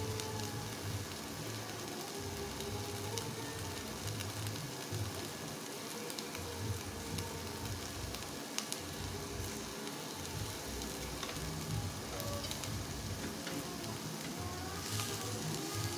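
Skewered beef satay sizzling steadily on a hot ridged grill pan while being basted with a sweet soy sauce glaze, with a few light clicks of the utensil.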